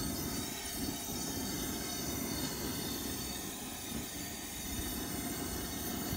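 Wind buffeting the microphone: a steady low rumble that wavers unevenly.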